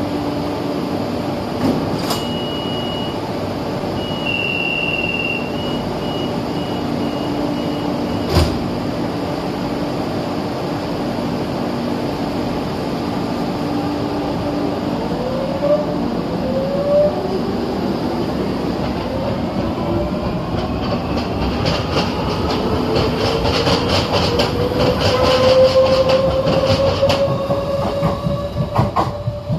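Madrid Metro train with a steady electric hum, a few short high beeps a couple of seconds in and a single knock about eight seconds in. From about halfway through, its traction motors whine in several rising tones that grow louder as it accelerates away.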